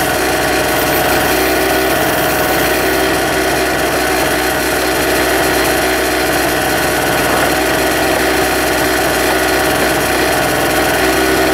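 Small portable generator engine running steadily at a constant speed.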